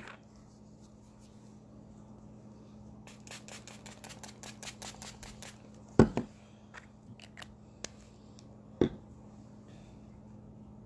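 Handling of a pump bottle of makeup setting spray: a quick run of light clicks for about two seconds, then a loud knock about six seconds in and a second knock near nine seconds.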